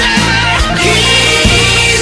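Hard rock music: held notes over electric guitar and drums, with a drum hit about every half second.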